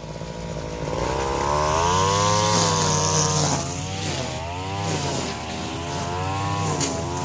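A small two-stroke brush cutter engine revving up and down again and again as the throttle is worked, its pitch climbing for a second or so and then dropping.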